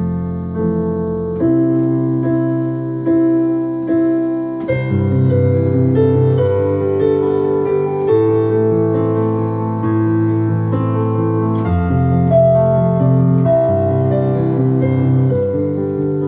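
Piano sound from a digital stage keyboard playing a slow instrumental passage: sustained chords changing every second or few seconds, with a melody line over them.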